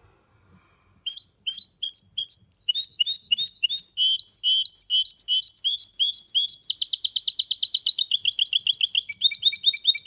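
Goldfinch mule (goldfinch–canary hybrid) singing: a few separate chirps from about a second in, then a fast, unbroken run of high twittering notes and rapid trills.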